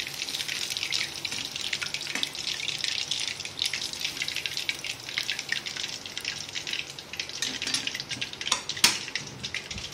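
Hot oil sizzling and crackling steadily as spinach cheese balls deep-fry in a metal kadai, with a sharp knock about two seconds in and a louder one near the end.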